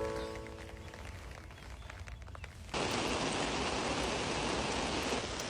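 Steady rain hiss that starts abruptly about halfway through, after a brief pitched tone near the start.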